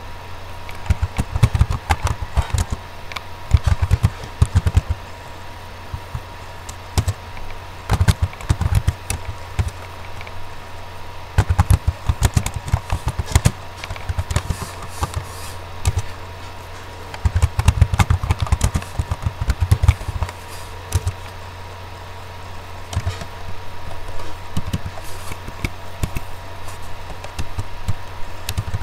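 Computer keyboard typing in bursts of quick keystrokes with pauses of a few seconds between them, the keys knocking sharply, over a steady low electrical hum.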